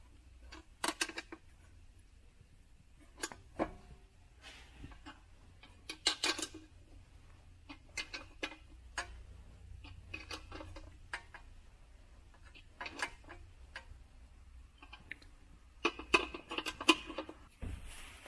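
Light metallic clinks and scrapes of a 10 mm combination spanner working nuts onto threaded studs in a steel mounting plate, coming in short scattered clusters.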